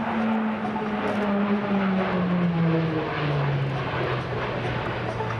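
E-2C Hawkeye's twin turboprop engines and propellers flying past. The propeller drone drops steadily in pitch as the plane passes, then levels out lower.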